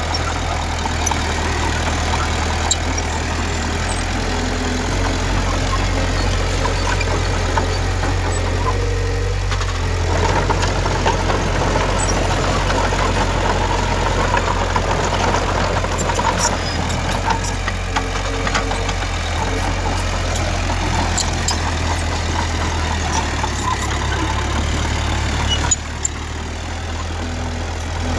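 Diesel engine of heavy earthmoving machinery running steadily, with scattered clanks and rattles over the rumble.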